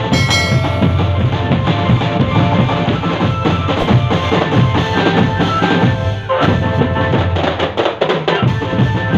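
Indonesian drum band playing live: bass and snare drums beating steadily under a held melody. The deep drums drop out for about two seconds past the middle, then come back in.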